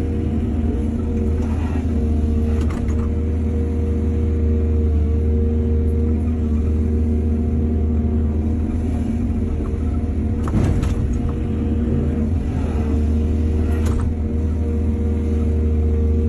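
Excavator's diesel engine running steadily under work, with a few sharp knocks: about three seconds in, twice more near the middle and near the end.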